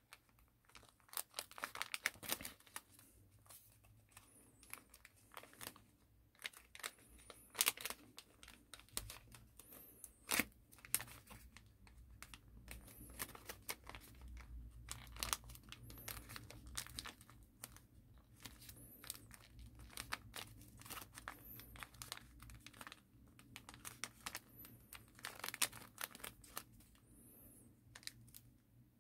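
Origami paper being bent and creased by hand, making soft irregular crinkles with sharper crackles scattered throughout.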